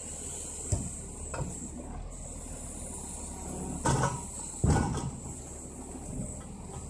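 Timber loader crane on a Scania 6x6 truck working a log, with the truck's diesel engine running steadily underneath. Sharp knocks and metal clunks from the crane and grapple, two light ones in the first second and a half and two louder ones around four to five seconds in.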